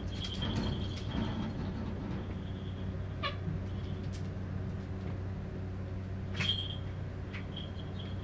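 Small collar bells on the cats jingling briefly a few times as they move, the clearest about six seconds in, over a steady low hum.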